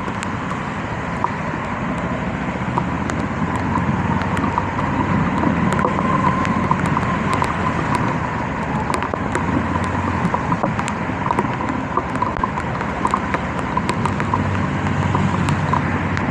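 Kawasaki KLE 250 motorcycle under way: engine running steadily under road and wind noise, with many sharp, irregular ticks.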